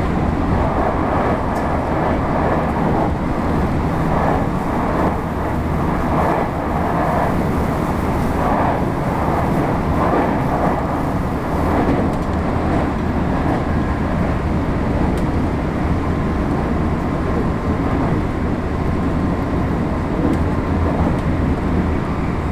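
Running sound of a JR West 225-0 series electric multiple unit heard from inside the passenger car at speed: a steady rumble of wheels on rail. Another train passes close alongside at the start, adding a pulsing rush that fades over the first ten seconds or so.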